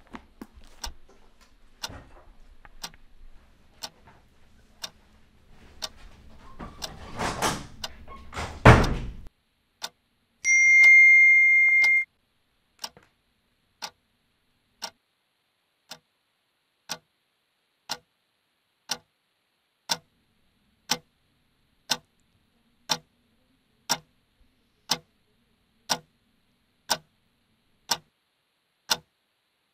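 A clock ticking about once a second, growing louder through the second half. About six seconds in, a rising swell of noise ends in a loud thud, followed by a steady high tone lasting about a second and a half.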